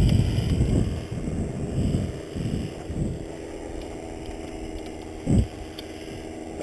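Wind buffeting the microphone in irregular gusts over the steady low hum of a paramotor engine at idle, with one short loud thud about five seconds in.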